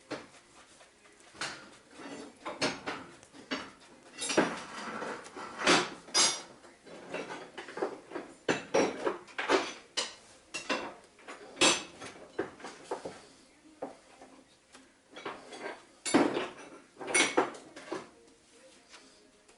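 A spreader scraping and slapping fiberglass body filler on a mixing surface as it is mixed with hardener, in irregular strokes, some long scrapes and some short clicks.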